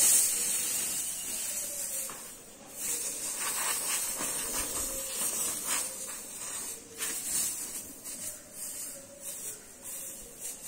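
Air hissing out of a punctured tubeless motorcycle tyre, loudest at the start and dying down over about two seconds, followed by short, intermittent hisses and rustles as the hole is worked on.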